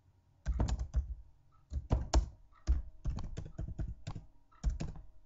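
Typing on a computer keyboard: clusters of quick keystroke clicks with short pauses between them, starting about half a second in.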